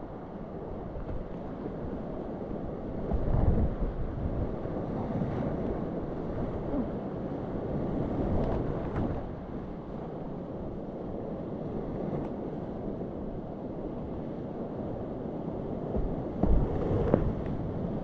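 Steady rush of a glacier-fed river in flood, heard from a kayak in the rapids, with wind buffeting the microphone. There are louder surges of splashing water about three seconds in and again near the end, as waves and paddle strokes hit the boat.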